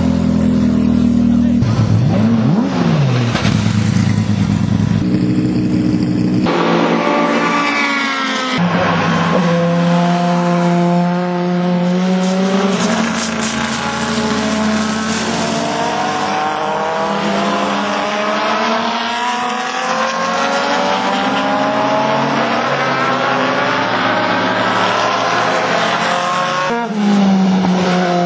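Racing car engines. First a race car's engine runs in the pit lane with a blip of revs. After a cut, racing cars accelerate hard on the circuit, their engine note climbing and dropping again and again through the gear changes.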